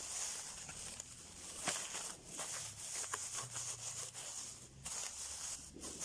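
Thin plastic bags of bait crinkling and rustling as a hand handles them, with irregular sharp crackles, the loudest about two seconds in.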